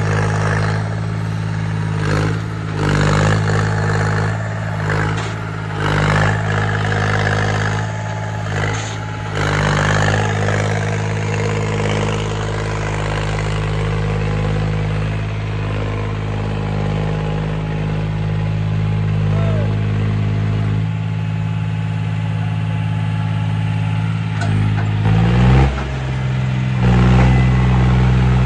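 Diesel tractor engine running steadily under load, pulling to free a trolley stuck in mud; near the end it revs up and gets louder.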